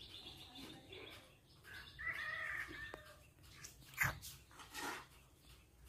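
Baby monkey giving a high, squeaky call for about a second while feeding from a milk bottle, with a sharp click about four seconds in.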